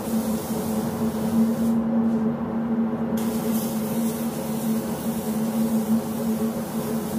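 Air spray gun hissing as it sprays car paint, over a steady machine hum. The hiss cuts out for about a second, around two seconds in, then starts again.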